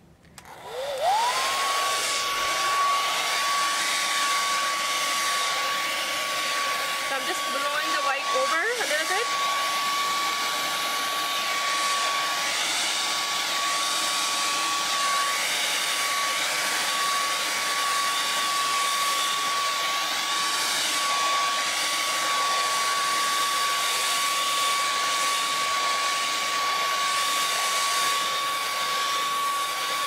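Hair dryer switching on, its motor whine climbing to a steady high tone within about a second, then running steadily over a rush of blown air.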